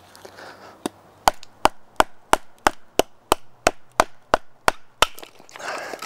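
A wooden baton strikes the spine of a Morakniv Robust knife in a quick, even series of about a dozen blows, about three a second, driving the blade into a crack to split a piece of wood.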